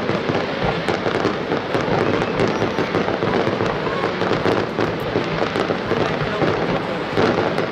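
Aerial fireworks display: a dense, continuous barrage of shell bursts with many overlapping pops and crackles and no break.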